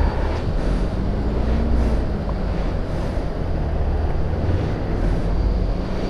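Steady rushing noise of a waterfall, mixed with wind buffeting the microphone as a low rumble.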